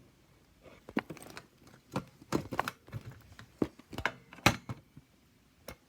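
Irregular sharp clicks and light knocks, a dozen or so at uneven intervals, from small objects being handled and set down on a hard surface.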